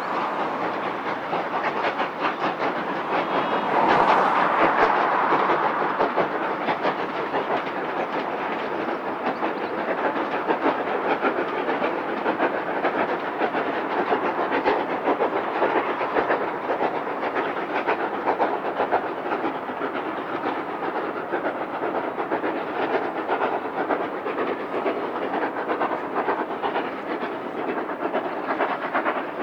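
Steam train running by on the line, its wheels clicking steadily over the rail joints, loudest about four seconds in.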